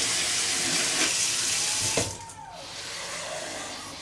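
Tap running cold water into a measuring jug. It is shut off with a knock about two seconds in.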